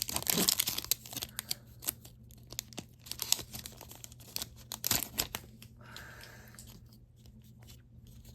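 A Yu-Gi-Oh! booster pack wrapper being torn open and crinkled: bursts of crackling, heaviest in the first second and again around three and five seconds in, fading to a softer rustle near the end. A steady low hum runs underneath.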